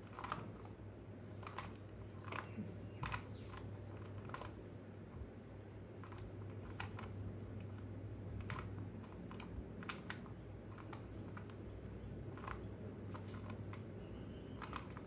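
2x2 Rubik's cube being scrambled by hand: irregular clicks and clacks of its plastic layers turning.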